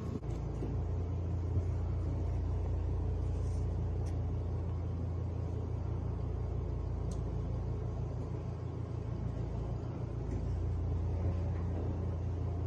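A steady low rumble with no clear events, easing briefly about nine seconds in.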